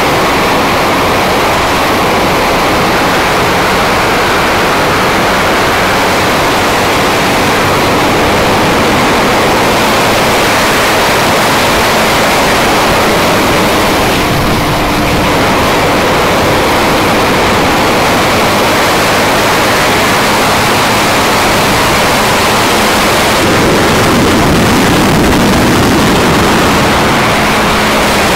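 Honda CBR250R motorcycle at cruising speed: loud, steady wind rush over the GoPro microphone, with the engine running steadily underneath.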